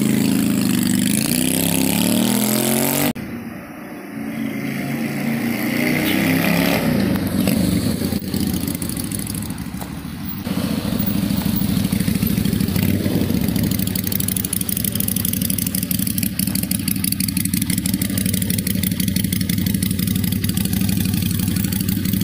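Keeway (Benelli) 250 cc V-twin motorcycle engine running and revving, its pitch rising near the start. About three seconds in the sound drops off sharply and stays quieter until about ten seconds in. From then on the engine runs steadily with a fast, even exhaust pulse.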